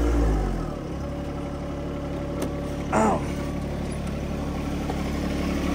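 Engine running fast, then slowing down about a second in and settling to a steady idle.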